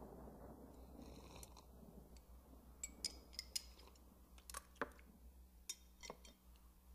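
Near silence over a faint low hum, with a scattering of small, sharp clinks of porcelain teacups and tableware being handled, most of them in the second half.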